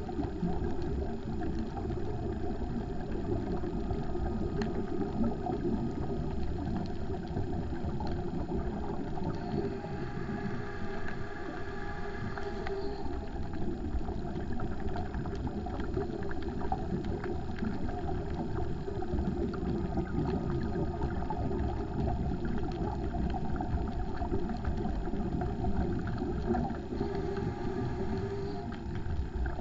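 Steady, muffled underwater rumble picked up through a GoPro's sealed waterproof housing while diving over the reef, with a slight hiss swelling a little about a third of the way in and again near the end.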